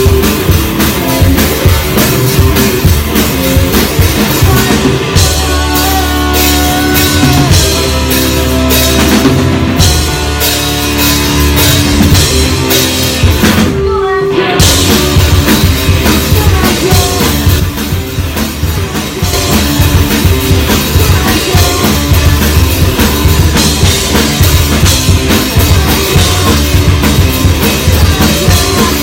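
Rock band playing live, drum kit driving a steady beat under bass and guitar, with a brief break about halfway through.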